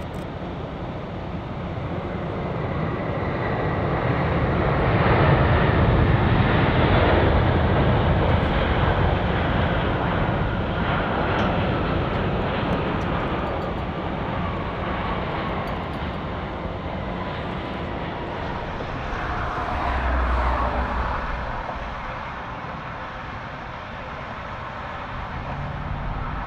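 Airbus A350 jet engines on the landing roll-out just after touchdown: a loud, steady jet rush that swells to a peak several seconds in, then eases while a whine falls in pitch as the engines spool down. A second, shorter swell with a falling whine comes about twenty seconds in.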